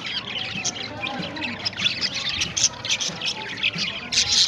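Many parrots chirping and chattering at once: a dense, continuous run of short high chirps that grows louder near the end.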